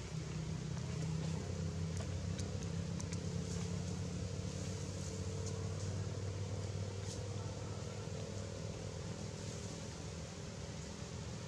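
A steady low engine hum, with a few faint high clicks.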